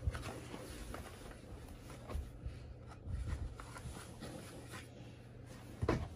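Soft scuffs and light thuds of leather sneakers stepping and shifting on a shag carpet, with a louder thump near the end, over a steady low hum.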